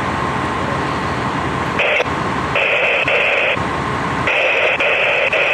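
Fire department two-way radio keyed open with no voice: steady static hiss with a faint hum, broken three times by stretches of harsher, higher-pitched static, the last about four seconds in.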